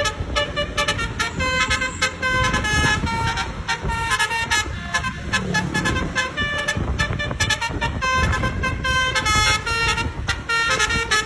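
Basuri 'telolet' multi-tone bus horn playing a quick tune of short notes that step up and down in pitch, over a low rumble of vehicle noise.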